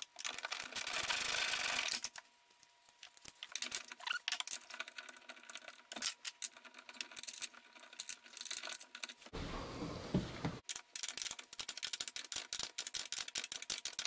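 Hand-fitting a hatch gas strut: a steady rushing rub for the first two seconds, then irregular small metal clicks and rattles of the strut ends and tools, with another short rub a little past the middle.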